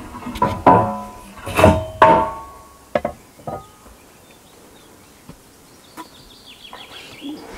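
Several loud knocks in the first two seconds, each with a short ringing, as materials are handled on a timber deck frame. Two lighter taps follow about three seconds in.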